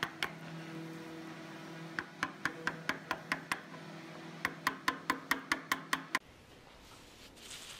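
Claw hammer tapping a chisel to pare wood on a wooden mast: two quick runs of sharp taps, about five a second, over a steady low hum, then a cut to quieter room sound about six seconds in.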